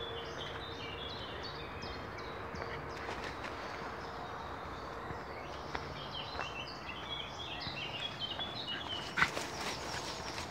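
Woodland birdsong: quick runs of short high notes near the start and again from about six seconds in, over the steady rustle of footsteps on a dirt path. A single sharp knock about nine seconds in is the loudest sound.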